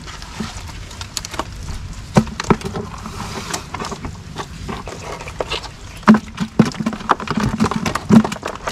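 Irregular light clicks and taps, sparse at first and coming faster and louder from about six seconds in.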